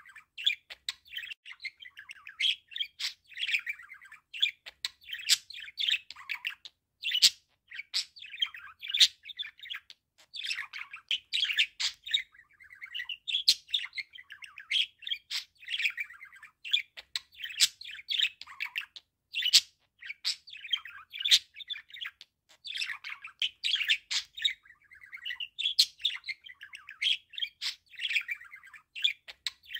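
Budgerigar warbling: a near-continuous stream of rapid chirps, chatter and sharp clicks, with only brief pauses.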